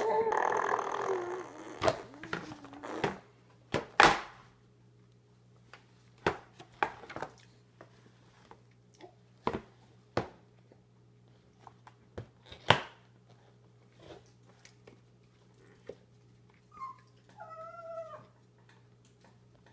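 A baby squealing and vocalising in a high, wavering voice for the first few seconds, followed by scattered sharp knocks and clatters of a hard plastic high-chair tray being banged and lifted. A short warbling babble comes near the end.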